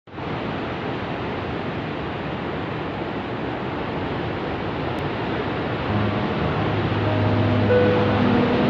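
A steady rushing wash of noise, with ambient music fading in on sustained low notes about six seconds in.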